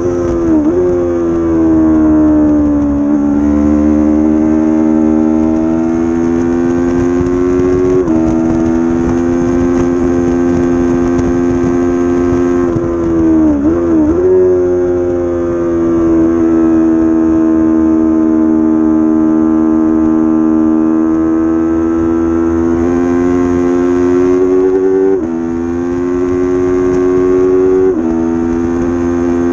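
300-class race motorcycle engine running hard at high revs under full throttle, heard from a camera mounted on the bike. The pitch climbs slowly and drops sharply at upshifts about eight seconds in and twice near the end, with a quick dip and recovery midway.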